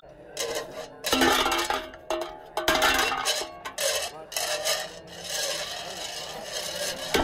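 A metal spoon scraping thick cream out of a tub and knocking against a ceramic bowl: a quiet first second, then a run of scrapes and clinks, some with a short ringing tone.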